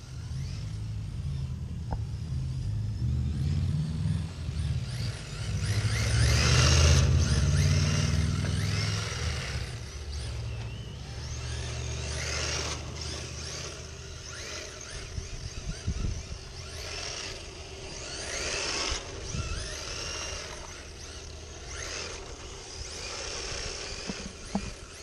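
Electric motor of an RC drift car whining in repeated sweeps that rise and fall in pitch as the throttle is worked around the track. A low rumble on the microphone is loudest during the first half.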